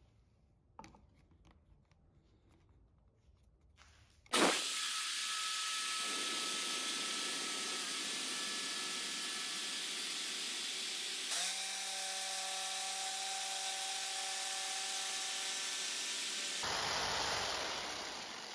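Jigsaw cutting a wooden board along a pencilled curve: a few faint handling clicks, then the saw starts abruptly about four seconds in, runs steadily with its pitch shifting once partway through the cut, and winds down near the end.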